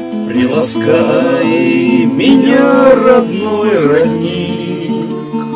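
Background music: a song with acoustic guitar accompaniment and a voice singing a melody over it.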